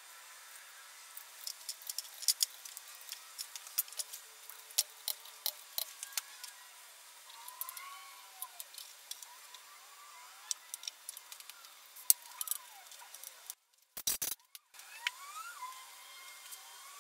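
Irregular sharp clinks and clicks of hand tools against metal engine parts as connecting-rod caps and bolts are fitted to the crankshaft of a Mazda BP engine block. Near the end the sound briefly cuts out.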